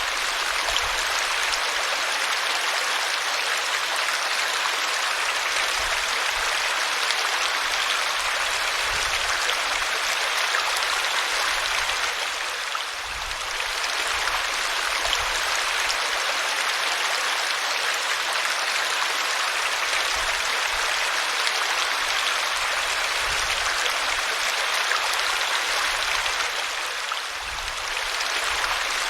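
Small waterfall: a steady rush of falling and splashing water, easing briefly about halfway through and again near the end.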